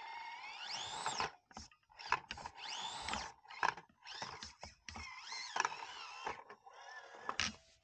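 Axial SCX24 micro crawler's small electric motor and gearbox whining, the pitch rising and falling several times as the throttle is worked, with sharp clicks and knocks as the truck climbs over rock.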